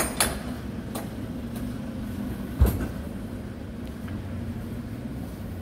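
City street ambience: a steady low rumble of vehicle traffic with a faint steady hum. There are a few sharp clicks near the start and about a second in, and a heavy thump about two and a half seconds in.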